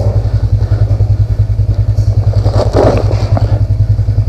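Engine running, a steady rapid low thumping of about ten beats a second, with a brief louder noise a little past the middle.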